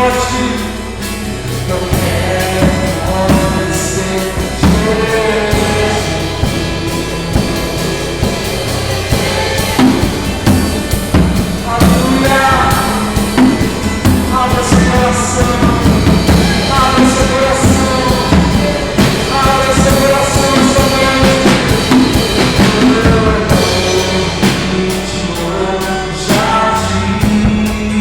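Live worship music: a singer over acoustic guitar and a drum kit, the drums playing busier from about ten seconds in until near the end, recorded through a phone's microphone.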